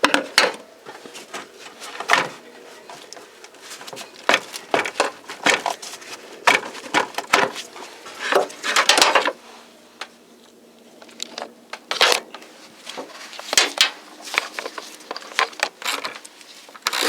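Irregular clicks, knocks and clatter of hand tools and hose clamps on the engine's fresh-air intake hoses as they are fitted and tightened, with a brief rasping stretch about nine seconds in.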